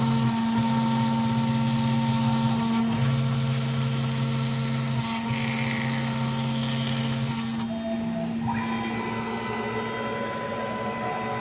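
Small milling machine running as it cuts Honda CB750K1 tachometer face plates to shape: a steady mechanical whine over a hum and hiss, with a high tone joining about three seconds in. About two thirds of the way through it drops abruptly quieter and settles into a lower, steady running.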